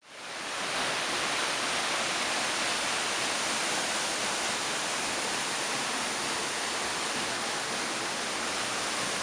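Waterfall roar: steady rushing white-water noise that fades in over the first second and then holds level.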